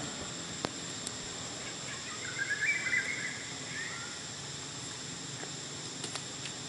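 A brief run of high, wavering chirping calls about two seconds in, lasting a second or so, over a steady background hiss, with a few faint clicks.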